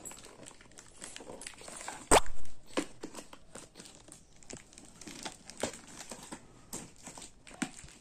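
Hands tearing and crinkling the plastic wrapping and flaps of a cardboard shipping box in irregular crackles and clicks, with one loud sharp click about two seconds in.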